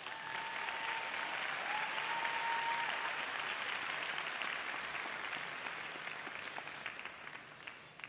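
Audience applauding, dense clapping that gradually fades away toward the end.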